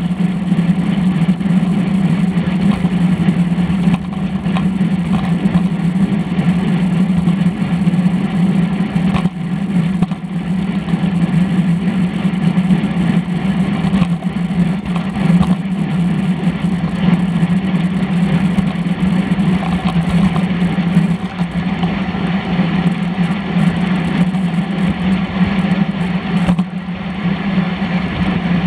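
Steady wind and road noise from a road bicycle riding at speed, picked up by a camera mounted on its handlebars, with a constant low hum under it.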